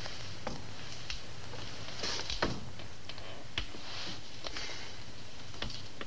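A few scattered soft knocks and rustles from people moving about a room, most likely footsteps and clothing, the clearest about halfway through. They sit over the steady hiss and hum of an old TV soundtrack.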